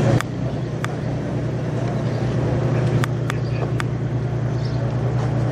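Large diesel truck engine idling steadily, with a few faint light clicks.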